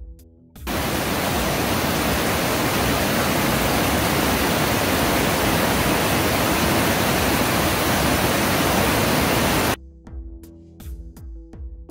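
Fast mountain creek in high snowmelt flow rushing over rocks: a loud, even wash of water noise that cuts in about a second in and stops abruptly near the end.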